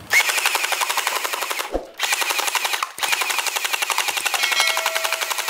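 Uzi-style gel blaster firing on full auto in three bursts, a rapid, even rattle of shots, with short breaks about two and three seconds in.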